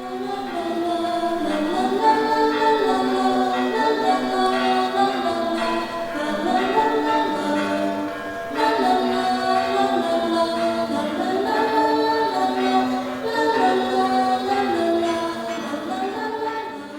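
Choir singing a cappella: several voices holding slow chords and moving from one chord to the next together.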